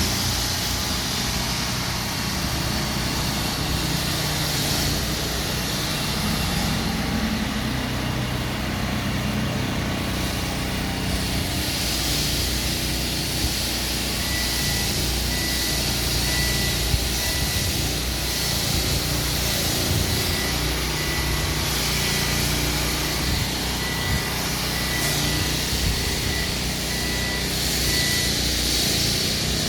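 Diesel engines of earthmoving machinery running steadily. From about halfway in, a faint high beeping about once a second joins in, typical of a machine's reversing alarm.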